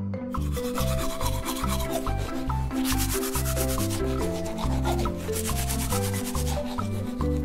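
A toothbrush scrubbing quickly back and forth over a baby monkey's teeth, a fast scratchy brushing, over background music with a bass line.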